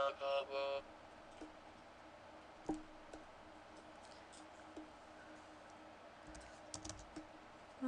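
Scattered computer mouse clicks, a handful spread through, with a small cluster near the end, while notes are edited in UTAU. In the first second a short held sung note from the synthesized voice plays back and stops.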